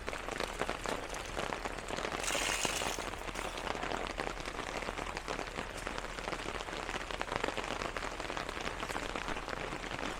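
Heavy rain falling steadily, a dense patter of drops, with a brief louder hiss about two seconds in.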